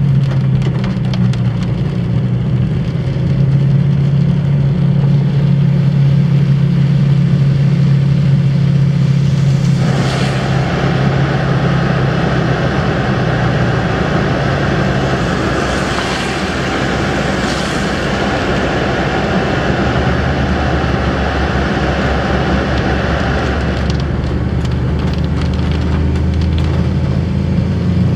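Car in rain heard from inside the cabin: a steady engine and road hum, joined about ten seconds in by a louder hiss of rain and wet tyres that fades again a few seconds before the end.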